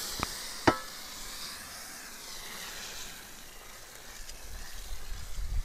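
Water spraying from a hose watering wand onto damp soil and compost in a plastic tub, a steady hiss. Two sharp knocks come within the first second, and a low rumble builds near the end.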